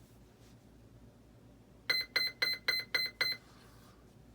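Electronic speed controller of an 80mm electric ducted-fan jet beeping through the motor at power-up: six short, identical beeps in quick succession, about four a second, starting about two seconds in.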